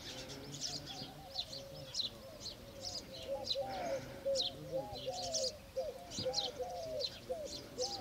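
Several small birds chirping in quick, short, high notes throughout, with a lower-pitched call repeating underneath in short rising-and-falling notes.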